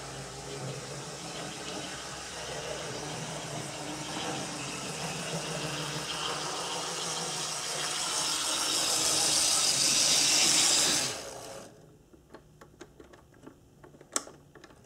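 HO-scale brass 0-6-0 steam locomotive model running on the track: its electric motor and gearing whir and its wheels rattle on the rails, growing louder until it stops abruptly about eleven seconds in. Afterwards come a few faint clicks and one sharp click near the end.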